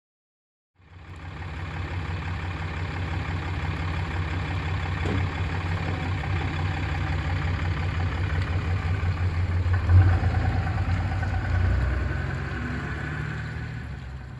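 A vehicle engine idling with a steady low rumble, with one short thump about ten seconds in.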